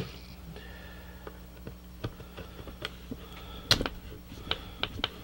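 Hard plastic handle of a handheld inspection camera being handled and turned over on a wooden workbench: scattered light clicks and knocks, the loudest a little under four seconds in, over a steady low hum.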